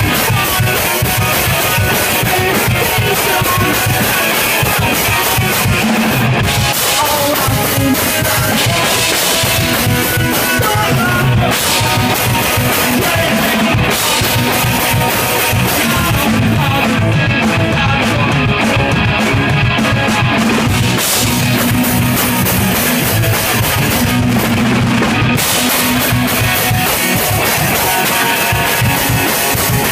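Punk rock band playing loudly: electric guitar over a drum kit.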